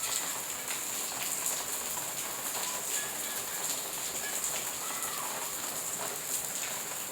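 Rain falling steadily: an even, continuous hiss of drops.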